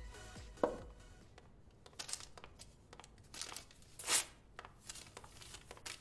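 A small paper packet being handled and torn open: short crinkles and rustles, with one louder tear about four seconds in. A short knock just under a second in, with music fading out at the start.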